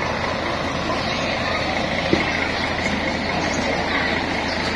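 Hyundai Universe tour coach's diesel engine running steadily a short way up the road, with a brief knock about two seconds in.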